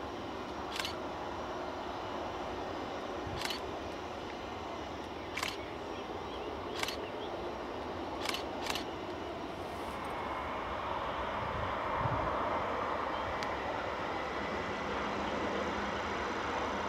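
Airbus A319 jet engines running at taxi power, a steady distant whine and rush that swells louder from about ten seconds in. Six sharp camera shutter clicks sound over it in the first nine seconds.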